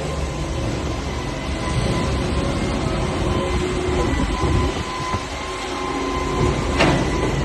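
Construction machinery running steadily during a concrete pour: a low rumble with a thin, steady whine over it, and a single sharp knock near the end.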